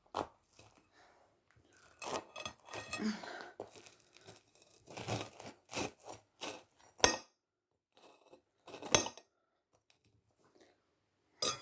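A knife cutting through a toasted sandwich: irregular crunching and tearing of the crisp toasted bread, with two sharp clicks about seven and nine seconds in.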